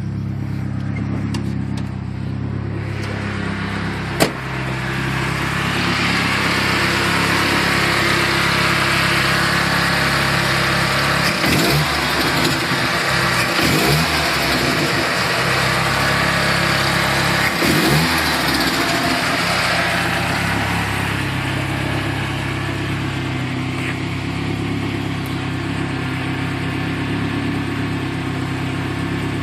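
Turbocharged Ford Ranger's engine running steadily, with a hiss that builds over the first several seconds and fades after about twenty, the strange noise the truck is making. The engine is blipped three times in the middle, each a short rise and fall in pitch, and there is one sharp click about four seconds in.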